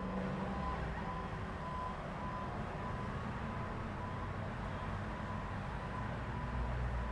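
Road traffic at an intersection: a steady low rumble of vehicle engines, with a high electronic beep repeating about twice a second over it. An engine grows louder near the end.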